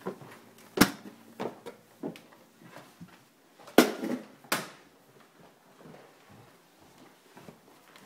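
A series of sharp knocks and clacks: one loud knock about a second in, a few lighter ones after it, and a loud cluster of two or three near the middle, the last one briefly ringing.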